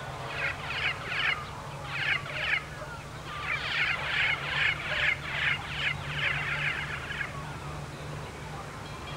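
A bird calling with a run of short, harsh squawks in irregular groups of about two to three a second, stopping about seven seconds in, over a steady low hum.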